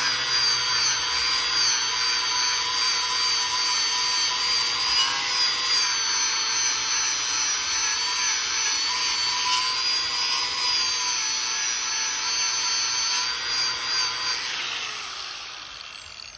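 Angle grinder with a worn-out flap disc sanding old rough-sawn wood, its motor whining steadily over the rasp of the abrasive, which scorches and darkens the surface. Near the end it is switched off and winds down, the whine falling in pitch and fading.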